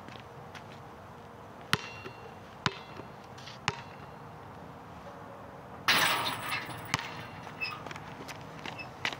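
Basketball bouncing on an outdoor court: three sharp bounces about a second apart. About six seconds in comes a louder, longer crash as the ball hits the hoop, followed by a few lighter knocks.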